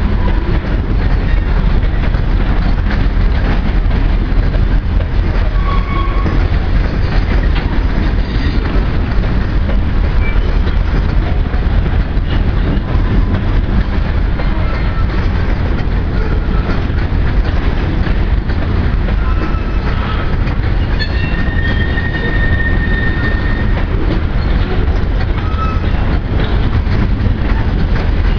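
Loaded covered hopper cars of a heavy grain train rolling past close by: a steady rumble and rattle of steel wheels on the rails. Brief high wheel squeals come through here and there, the longest about two-thirds of the way in.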